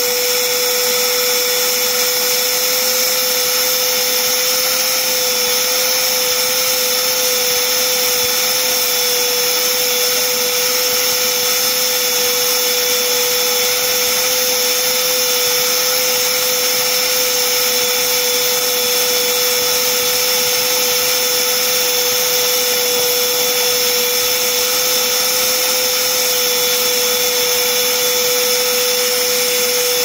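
Hoover Whole House Rewind vacuum running steadily, drawing air through its hose and crevice tool on a rug. The sound is a steady, unchanging whine over a loud rush of air.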